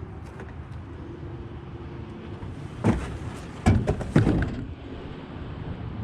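An old mailbox being handled: a knock about three seconds in, then a quick run of louder knocks and rattles, over a steady low outdoor rumble.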